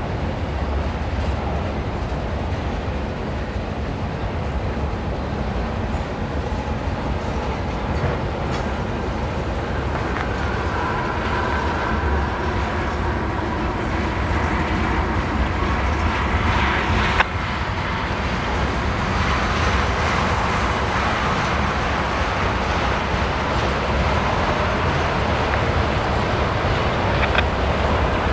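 Freight cars rolling past: boxcars, tank cars and autoracks, a steady rumble of steel wheels on rail. A faint high squealing tone comes and goes in the middle, and there is one sharp knock about two-thirds of the way through.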